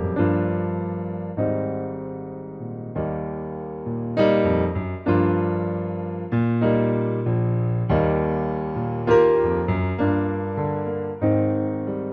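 Background music: slow electric piano chords, each struck about once every second or two and left to fade.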